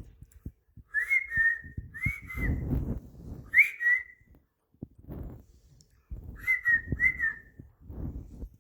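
Young sun conure giving short whistled chirps, several of them, some in quick two-note pairs that rise and fall, with soft rustling noises between them.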